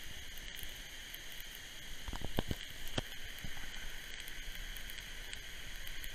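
Thin jet of water from a toy fire truck's nozzle spraying into burning cardboard: a steady hiss, with a few sharp crackles and knocks about two to three seconds in.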